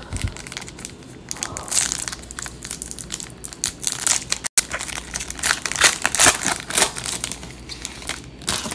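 A plastic trading card pack wrapper being torn open and crinkled, with dense, irregular crackling throughout.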